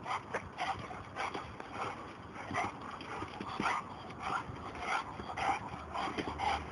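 A dog yipping and whining in short, repeated cries, several a second, excited by the chase of a laser pointer dot.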